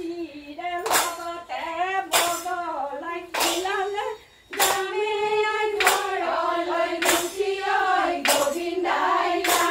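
A group of women singing a Husori (Assamese Bihu carol) song together, with unison hand claps on a steady beat about once every 1.2 seconds.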